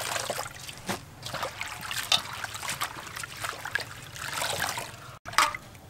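Water splashing and trickling as handfuls of chopped lettuce are lifted from a metal bowl of water and dropped back in, the water streaming off the leaves in uneven splashes.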